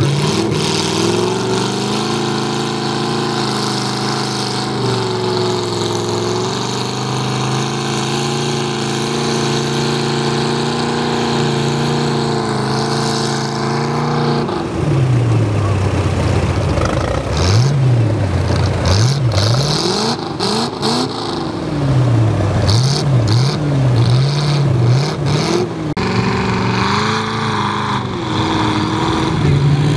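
A truck engine running at a steady pitch, then from about halfway revving up and down again and again in quick surges.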